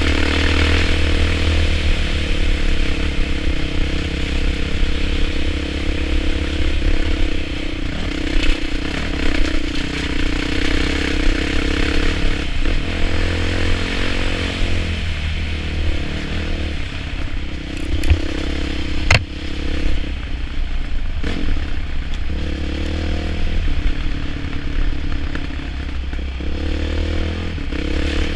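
Off-road motorcycle engine running as the bike is ridden over a rough dirt trail, its revs rising and falling with the throttle. Rattles and clatter from the bike over the bumps, with two sharp knocks about two-thirds of the way through.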